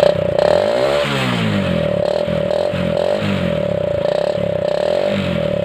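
Motorcycle exhaust blown through a water-filled plastic soft-drink bottle tied to the silencer, the air going through the water and out to make the sound. It gives a steady note that pulses in a regular rhythm, with a brief rise and fall about a second in.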